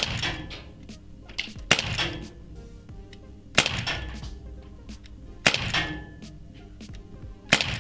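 Umarex Legends S60 4.5 mm CO2 pellet revolver fired five times in double action, a sharp crack about every two seconds, each shot ringing briefly in the range.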